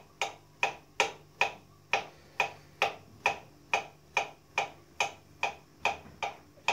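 Kitchen knife slicing a banana into small rounds directly on the countertop, each cut ending in a sharp tap of the blade on the worktop, at a steady rate of about two cuts a second.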